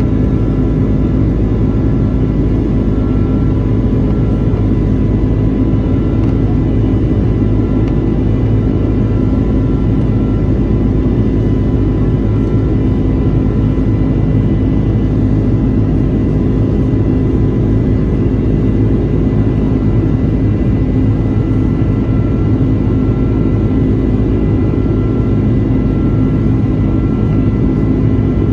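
Airbus A330-200 jet engines heard from inside the cabin during the climb: a loud, steady roar with a few fainter steady whining tones above it.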